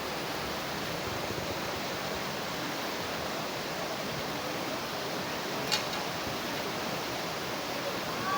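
Steady rushing noise of flowing water, with one short click about six seconds in.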